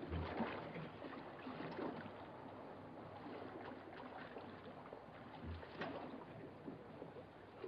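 Quiet shoreline sound with no music: faint lapping water and a few soft knocks and scuffs over the steady hiss of an old film soundtrack.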